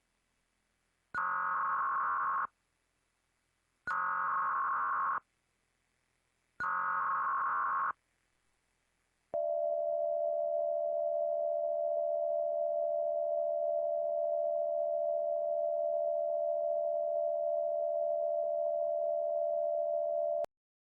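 Emergency Alert System test, slowed and lowered in pitch: three screeching SAME header data bursts, each about a second and a half long, then the two-tone attention signal held steady for about eleven seconds before it cuts off.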